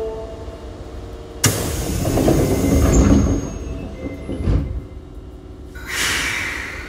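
Doors of an Osaka Metro 22 series train closing: a sudden rush of air about a second and a half in, a thud about three seconds later, then a short burst of air hiss near the end.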